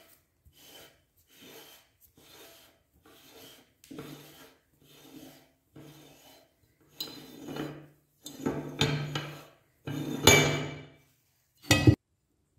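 Hand-cranked meat grinder turned by hand, its auger and cutter crushing chocolate against the die plate. It gives rasping scrapes in a steady rhythm, about one every two-thirds of a second, that grow longer and louder in the second half. A short, sharp scrape comes near the end.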